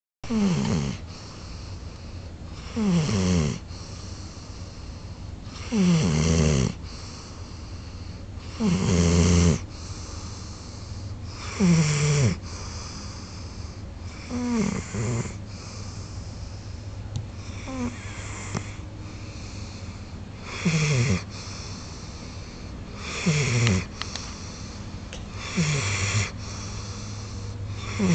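Big golden retriever snoring in deep sleep: about ten loud snores, one every two and a half to three seconds, each sliding down in pitch.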